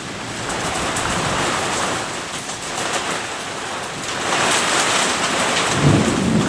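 Heavy rain pouring down in a thunderstorm with wind. It swells louder about two-thirds of the way through as a roll of thunder builds near the end.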